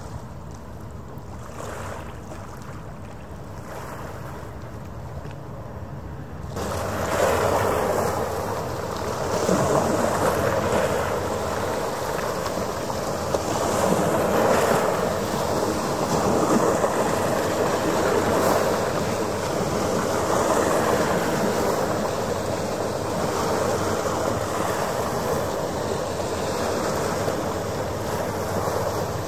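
Waves washing against the shore in swells about every two seconds, starting abruptly several seconds in, over the faint steady drone of a passing ferry's engines.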